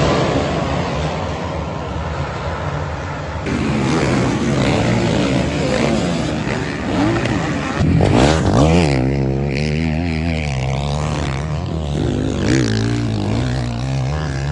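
Motocross bikes: a full gate of dirt bikes revving together at a race start, then a single motocross bike revving up and down as it rides, its pitch rising and falling repeatedly from about eight seconds in.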